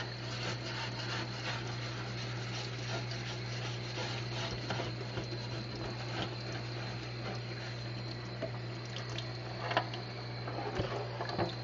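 Razor blade scraper rasping over a wet glass aquarium lid in short repeated strokes, scraping off hard-water calcium deposits, over a steady hiss of running water.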